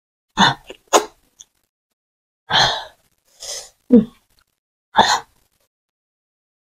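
Close-miked mouth noises of a person eating amala with black soup and fish: about six short, separate breathy sounds and smacks at irregular spacing, with quiet gaps between.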